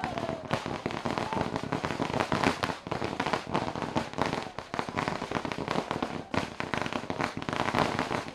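A string of firecrackers going off, a dense run of rapid, irregular crackling pops.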